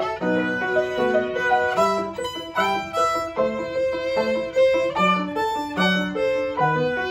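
Violin playing a hornpipe in quick, separate bowed notes, accompanied by a grand piano playing a steady pattern of lower notes and chords.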